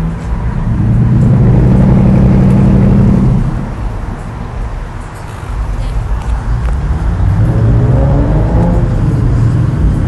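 A motor running with a low, steady hum that swells about a second in, eases off, and builds again from about seven seconds, its pitch rising briefly near eight seconds.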